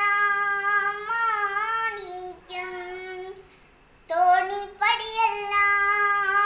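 A young girl singing a Malayalam light song (lalithaganam) unaccompanied, in long held notes. She stops for a breath about three and a half seconds in and starts the next phrase about half a second later.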